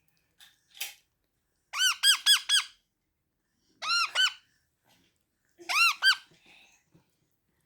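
Parrot giving short, high squeaky chirps in three quick bursts: four chirps about two seconds in, a tight cluster about four seconds in, and two more near six seconds. Two faint clicks come just before the first burst.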